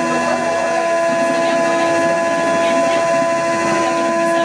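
Live electronic drone music: several steady held tones over a dense rumbling texture, with no beat.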